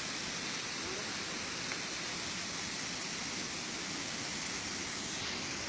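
Steady, even hiss of rain and running floodwater, with no distinct events.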